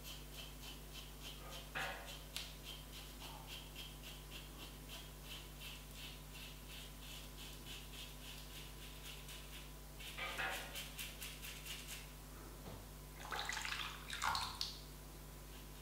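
Double-edged safety razor scraping through lathered stubble in short, quick strokes, about two to three a second, with a few louder, scratchier sounds in the last few seconds.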